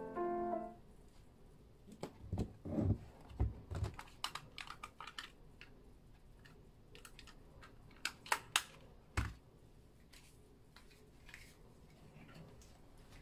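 Scattered light clicks and taps, some in quick clusters, with a few soft thumps, like small objects being handled or keys being tapped at a desk. Background music stops within the first second.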